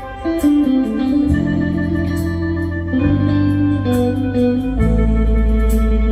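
Music played loudly through PA speaker cabinets with 21-inch bass drivers, powered by a TDK DS5000Q power amplifier during a bass test. Held notes change every second or so over a heavy, deep bass line, which drops lower about three-quarters of the way through.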